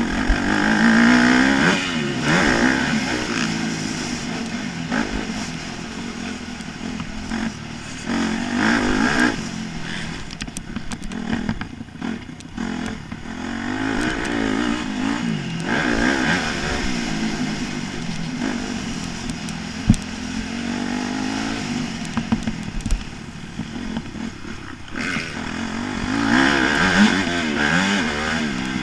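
Motocross bike engine ridden hard on a dirt track, revving up and falling back over and over as the rider accelerates and backs off. There is a single sharp knock about two-thirds of the way through.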